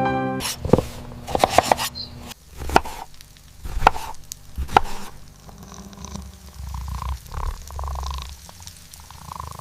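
Knife chopping food on a cutting board: a run of sharp, irregularly spaced knocks.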